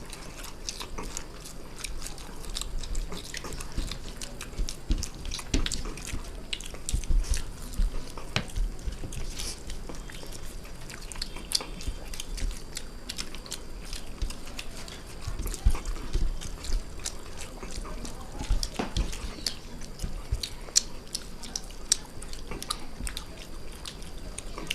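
Close-up eating sounds of chowmein noodles and chicken Manchurian being eaten fast: chewing with frequent small wet clicks and smacks, irregular throughout.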